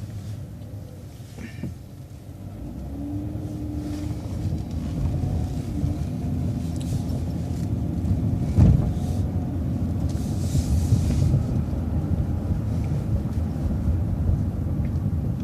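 Transit bus running, heard from inside: the drivetrain rumble builds as the bus pulls away through a left turn. There is one sharp knock about eight and a half seconds in, then a brief hiss a couple of seconds later.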